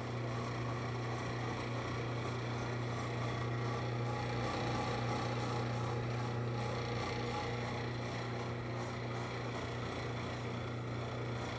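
Electric 2-gallon butter churn's motor running steadily with a low, even hum as it churns cream into butter.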